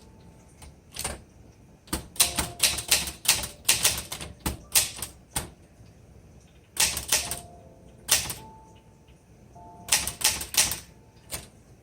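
Typing on a 1960s Underwood 21 manual typewriter: typebars snapping against the platen in quick bursts of keystrokes, with short pauses between words.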